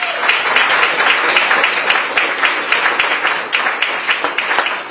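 Audience applauding, many hands clapping at once, easing off a little near the end.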